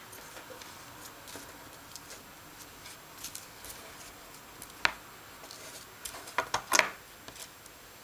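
Light handling clicks and taps as a small circuit board with a freshly fitted IC socket is turned over and set down on a paper-covered table, with a sharper click about five seconds in and a quick cluster of louder clicks around six and a half seconds as tools are picked up for soldering.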